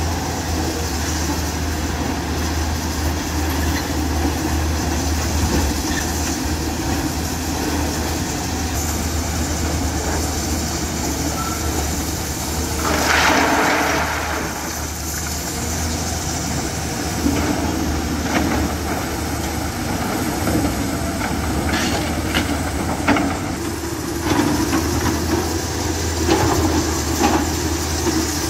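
Hyundai 210 crawler excavator's diesel engine running steadily under hydraulic load as the machine swings and works its bucket. There is a rush of rock pouring out of the bucket about halfway through, and scattered clatter of crushed stone knocking against the bucket and the pile later on.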